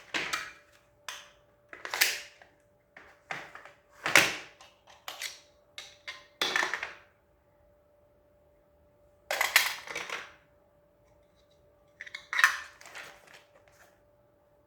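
Handling noises from unboxing a pistol: a string of short knocks, clicks and rustles at uneven intervals, with a pause of a couple of seconds partway through.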